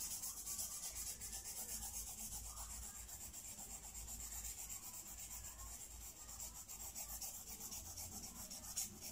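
Coloured pencil scratching on paper in rapid back-and-forth shading strokes, filling in a band of colour.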